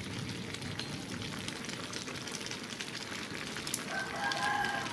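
Braised vegetables in soybean sauce simmering in a pan, a steady crackling and bubbling as the sauce cooks down. A short pitched sound, like a faint voice, comes in near the end.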